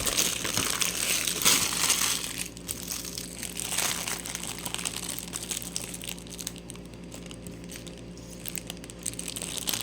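Plastic LEGO parts bags crinkling as they are handled, louder for the first couple of seconds and then softer and more scattered.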